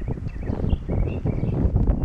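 Wind buffeting the microphone in gusts, with small birds chirping repeatedly.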